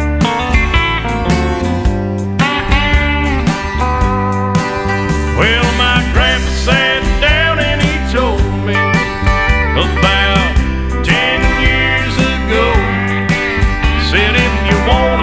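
Instrumental break of a country song: guitar lead lines with bending notes over a steady bass and drum beat.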